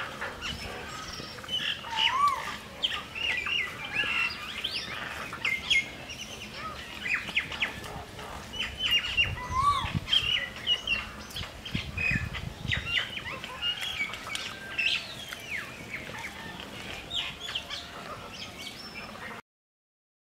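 Small birds chirping and calling over and over in quick, varied notes, with the sound cutting out to silence shortly before the end.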